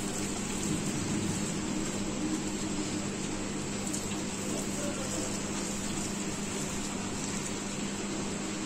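Steady rushing hiss with a low hum under it, with no clear knocks or clatter: kitchen background from a gas stove burning at medium flame under a pan.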